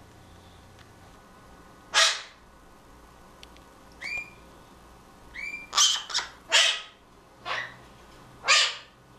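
Blue-crowned conures calling: a series of about six loud, harsh squawks, with two short whistled chirps in between about halfway through.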